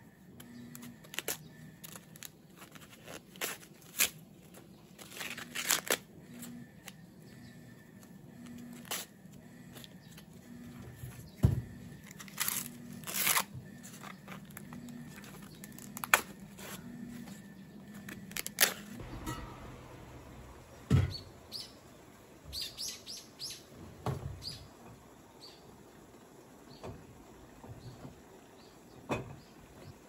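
Green husks being ripped and peeled back by hand from fresh ears of corn: a run of sharp tearing and rustling strokes, busiest in the first two-thirds.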